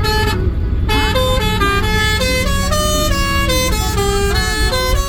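A tune of sustained notes stepping up and down in pitch, rich in overtones, over a steady low rumble.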